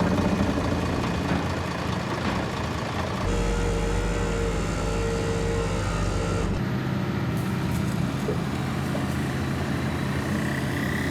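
A motor vehicle's engine running steadily, its hum changing abruptly about three seconds in and again about six and a half seconds in.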